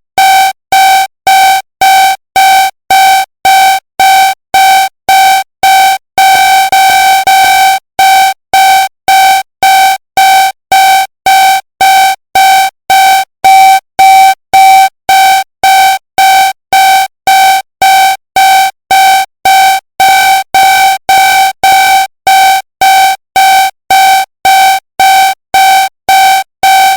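Emergency alert tone: a loud, buzzy electronic beep repeating about twice a second, with a brief run of rapid stuttering beeps about six seconds in.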